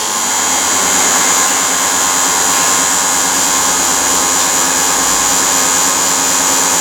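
Smart & Brown 1024 lathe running under power: a steady mechanical hum with a high whine, holding an even pitch throughout.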